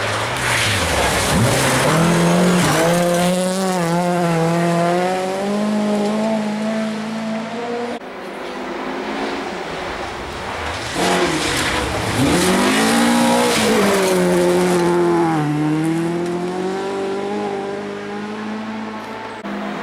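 Two rally cars pass at speed on a gravel stage one after the other, the second a Volvo 240 rally car. Each engine is at high revs, its pitch drops as the car goes by and then holds as it pulls away, over the hiss of tyres on gravel.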